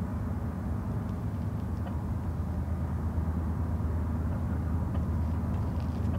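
BNSF GE ES44DC diesel-electric locomotives running, a steady low engine rumble that grows slowly louder as the train approaches.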